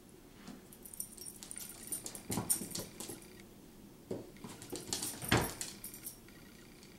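A Bengal cat and a small dog play-wrestling: claws scrabbling and a bath mat scuffing on a vinyl floor, with collar jingling, in two spells. There is a thump about two and a half seconds in and a heavier thump a little after five seconds.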